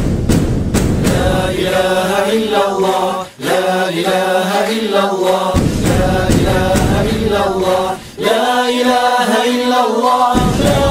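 Background music: an Arabic nasheed, voices chanting a slow melody in long phrases over a low backing, with two short pauses between phrases.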